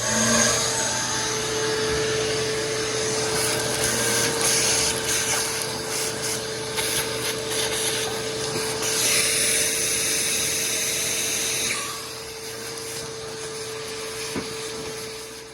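Oscillating multi-tool running with a dull blade, scraping thick old seam sealer off a car's hood hinge mount: a steady hum under a rough scraping hiss. It gets quieter about twelve seconds in and stops at the end.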